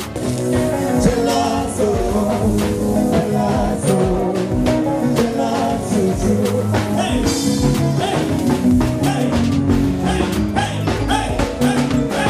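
Upbeat music with a steady drum beat and a singing voice.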